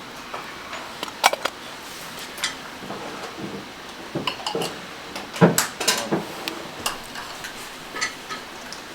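Light clicks and taps of small metal watchmaking tools and parts being handled and set down on a bench, scattered irregularly, with a busier run of taps about four to six seconds in.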